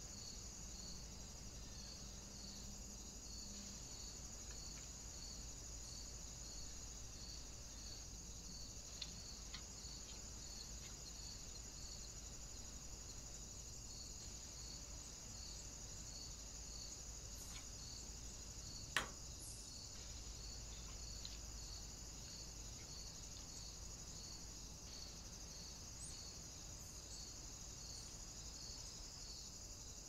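Crickets chirping faintly: a steady high trill with a short pulse repeating about one and a half times a second. A single sharp click a little after halfway, with a couple of fainter ticks earlier.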